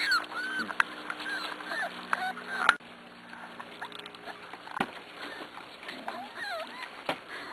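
Six-week-old corgi puppies whimpering and squeaking in short high notes that bend up and down, with scattered light clicks. A low steady hum underneath cuts off about three seconds in.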